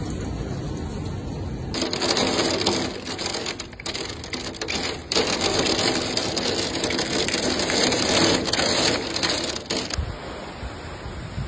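Torrential rain driven by strong wind in a severe thunderstorm, a dense hiss of pelting water. It turns abruptly louder and sharper about two seconds in and drops back to a quieter wash near the end.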